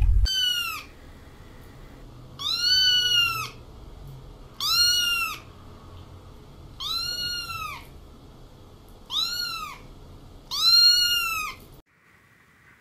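A kitten meowing over and over: five high-pitched meows, each rising then falling in pitch and lasting about a second, come about two seconds apart after the tail of an earlier one. The meowing stops abruptly near the end.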